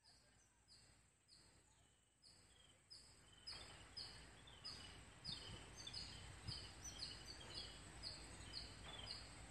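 A bird repeating a short, falling chirp about twice a second over a faint outdoor noise haze, the whole fading in from silence and growing louder.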